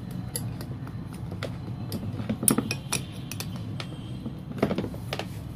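Irregular metal clicks and clinks of a spanner and small carburetor parts being handled while a part is fitted and tightened, with two louder clinks about halfway and near the end, over a steady low hum.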